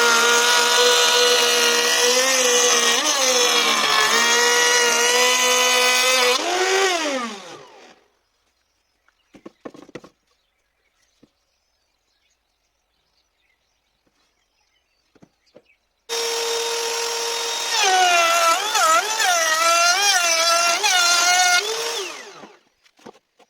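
Handheld electric power tool running with a steady whine, then winding down with falling pitch about seven seconds in. After a pause with a few light clicks it starts again about sixteen seconds in, its pitch wobbling up and down, and winds down near the end.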